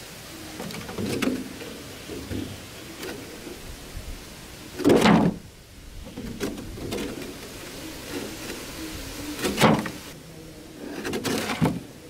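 Hands scraping and brushing dry, sandy soil around a buried plastic jar, with soft rustling throughout and three short, louder scrapes: about five seconds in, near ten seconds, and near the end.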